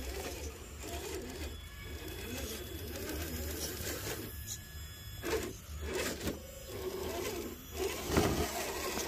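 Small electric motor and drivetrain of an Axial SCX10 III RC rock crawler whirring as it crawls over rocks, with a few sharp knocks from about five seconds in and one loud knock near the end.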